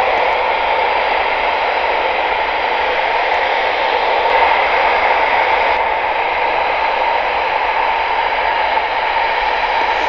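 Airband radio scanner giving out a steady loud hiss of static between transmissions.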